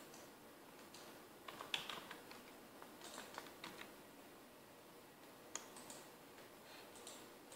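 Faint computer keyboard and mouse clicks in small clusters over a low hiss, as a value is typed into a field.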